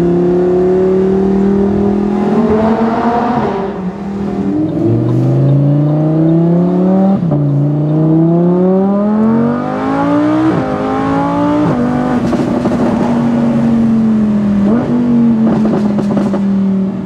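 Lamborghini Huracán's 5.2-litre V10 under hard acceleration. Its note climbs in pitch and drops sharply at each of about four quick upshifts of the seven-speed dual-clutch gearbox, then settles to a steady drone.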